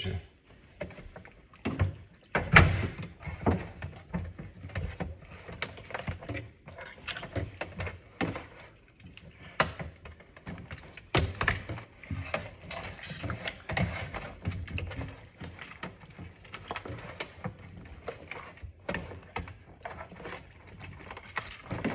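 Regular scissors crunching through the backbone of a raw chicken, with irregular clicks and knocks as the bird is handled. The loudest thunk comes about two and a half seconds in.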